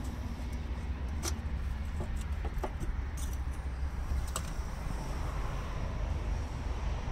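An H4 halogen bulb being taken out of the back of a car headlight: a handful of sharp clicks and small metal snaps as the connector and the wire retaining clip are worked loose. Underneath is a steady low rumble.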